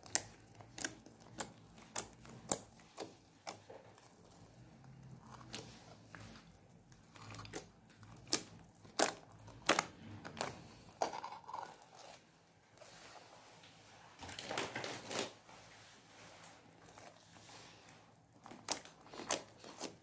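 Sticky, wet slime packed with colourful confetti-like slices being squeezed and poked by hand, giving many short sharp pops and clicks, with a longer, noisier squish about three-quarters of the way through.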